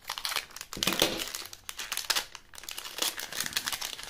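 Plastic candy-packet wrapper crinkling and crackling as it is handled and opened, loudest about a second in.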